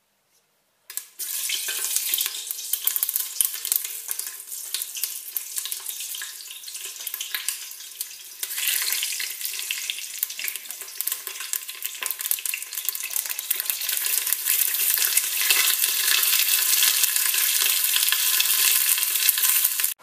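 Whole long green peppers frying in hot oil and butter ghee: a loud, crackling sizzle that starts suddenly about a second in as they hit the pan and grows louder toward the end.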